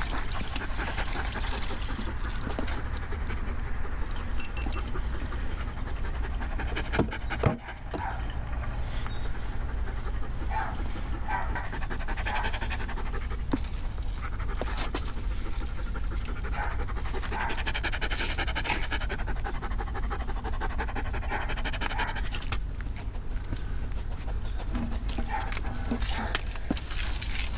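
A poodle panting steadily, with one sharp knock about seven seconds in.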